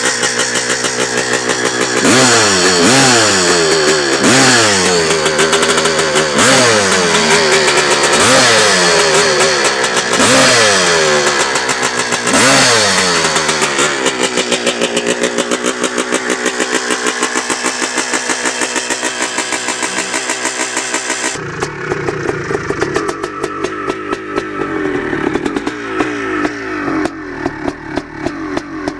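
Dirt bike engine revved in a series of quick blips, each rising and falling in pitch, then running more steadily. About 21 seconds in, it cuts to a different recording of an engine running at low revs.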